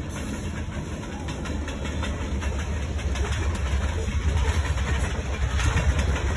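Freight train rolling past: covered hopper cars rumbling and clattering over the rails, with the diesel locomotives' engines running as they pull away, growing louder toward the end.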